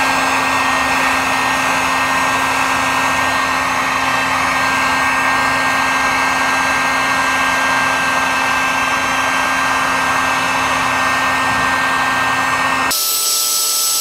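Harbor Freight electric heat gun running steadily, its fan blowing hot air with a steady hum and whine while it heats a short length of PVC pipe to soften it. About a second before the end the sound changes abruptly and the low hum drops out.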